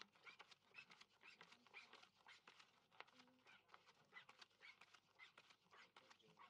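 Playing cards being drawn from a dealing shoe and laid on a felt blackjack table: a faint, quick run of clicks and snaps, with small high squeaks among them.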